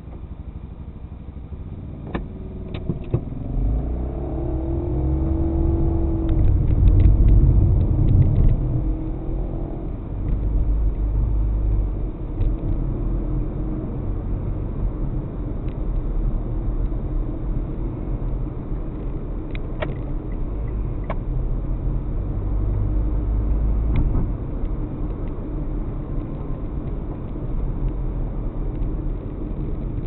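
Car driving, heard from inside the cabin through a dashcam: low road and engine rumble that swells with rising engine pitch as the car pulls away about four seconds in, loudest around seven seconds, then settles into a steady cruising rumble with a few small clicks.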